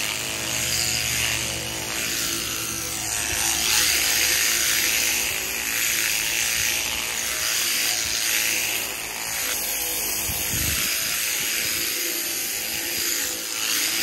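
Electric sheep-shearing handpiece running steadily, driven through a cord from a motor box, as it cuts the wool away from a fly-struck lamb to expose the wound. A low hum under the buzz drops out about three-quarters of the way through.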